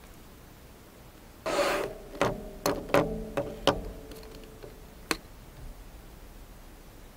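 Plastic lab ware being handled: a brief scrape, then about six sharp clicks and knocks as a micropipette and a Falcon tube are taken up from a plastic rack.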